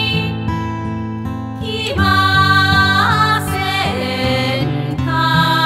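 Background music: a gentle song with singing and guitar.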